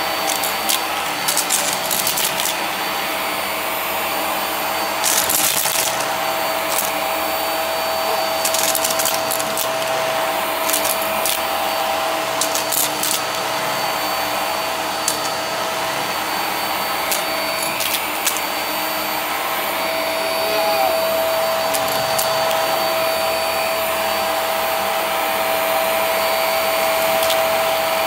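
Hart vacuum running on carpet with a steady motor whine, sucking up heart-shaped confetti that clicks and rattles up through the head and into the bin. The clicks come in scattered clusters through the first two-thirds and die away once the confetti is gone, leaving the plain running whine.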